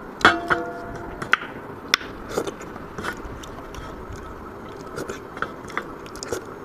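Close-up eating sounds of runny chutney being scooped from a bowl with the fingers and sucked off them: a string of sharp wet smacks and clicks, loudest in the first second or so.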